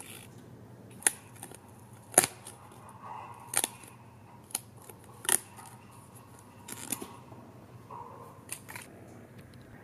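Pre-cut cardstock parts being popped out of a die-cut paper sheet: a series of sharp, irregular snaps as the small holding tabs break, with light paper rustling between.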